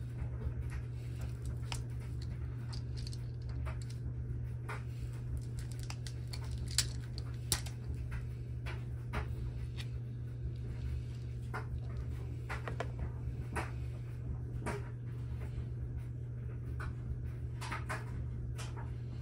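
Scattered small clicks and clinks from a hand lug-crimping tool, a copper cable lug and heavy red battery cable being handled, with two sharper clicks about halfway through. A steady low hum runs underneath.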